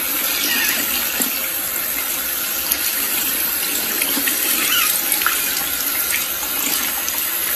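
Tap water running steadily into a sink, splashing over hands and a small animal held under the stream.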